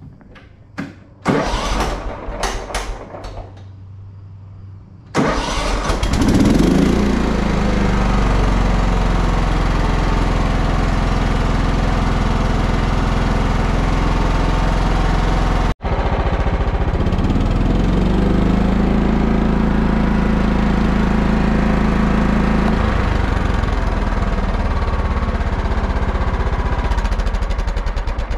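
Simplicity Coronet rear-engine riding mower's engine being started. A few short cranking strokes come first, then it catches about five seconds in, revs up and runs steadily. It speeds up again partway through and changes tone later on. This is a test run after its carburetor was cleaned and refitted to cure stalling from fuel starvation.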